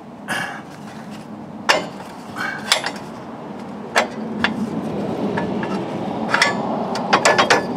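Steel mower-deck linkage parts clanking and clinking against each other as they are worked into place by hand under a compact tractor: a few separate sharp metal knocks, with a quick cluster of clicks near the end.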